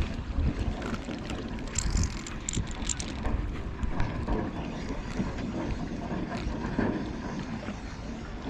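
Wind buffeting the microphone outdoors, a steady low rumble, with a few short high clicks about two to three seconds in.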